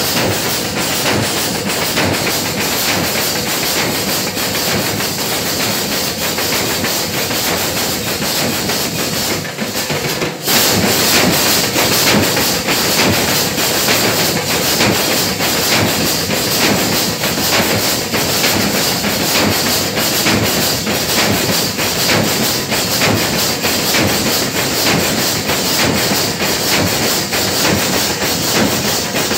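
A band of large double-headed dhol drums beaten with sticks in a loud, fast, dense rhythm. The playing briefly drops away just before ten seconds in, then resumes slightly louder.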